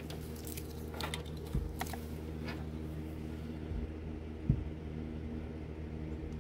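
Small plastic clicks and taps of an LED Christmas light bulb being handled and fitted into its socket on the light string, with a sharper knock about four and a half seconds in, over a steady low hum.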